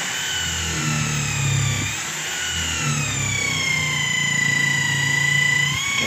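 Corded electric drill boring a hole through a wooden plank. Its motor whine sinks in pitch as the bit loads up, holds low for a few seconds, then picks up again near the end.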